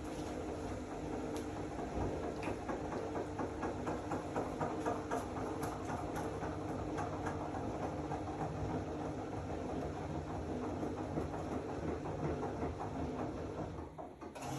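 Zanussi AquaCycle 500 FA 623 washing machine running: a steady motor hum with a rattle of quick clicks through the first half, briefly dropping away near the end.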